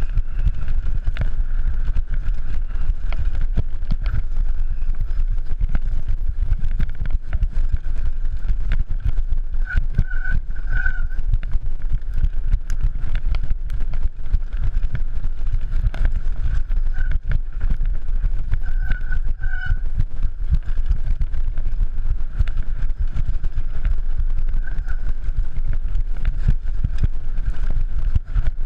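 Downhill mountain bike ridden fast over a rough dirt trail, heard from a camera on the bike or rider: heavy wind rumble on the microphone with constant rattling and knocking of the bike over the ground. Short high squeaks come through about ten seconds in and again near twenty seconds.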